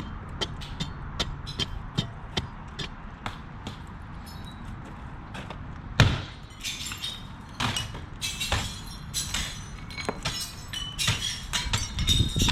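Hand demolition work: irregular sharp knocks, taps and clinks, with one louder impact about six seconds in.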